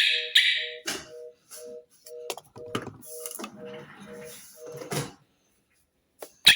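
Alarm equipment beeping: a short two-tone electronic beep repeating about two and a half times a second, stopping about five seconds in, during the pairing of a wireless hooter to the alarm receiver. Clicks, knocks and scratchy rustles from handling the units sound over it.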